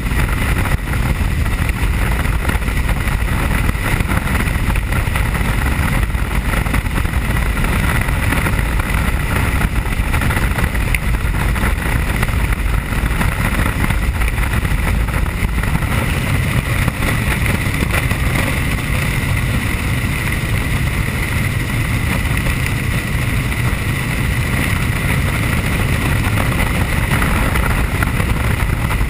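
Helicopter in flight, heard from inside the cabin: a steady rotor and engine drone with a low rumble and a constant high whine, unchanging throughout.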